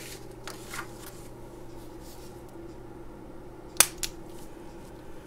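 Solenoid valve being switched on and off through a switch, giving one sharp click followed by a softer click about a third of a second later, over a steady low hum.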